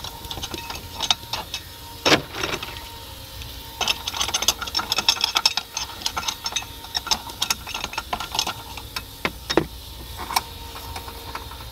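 Lumps of coal clattering and clinking against metal as they are put into the small firebox of a steam canoe's boiler. The clicks and knocks are irregular, with a dense run about four seconds in.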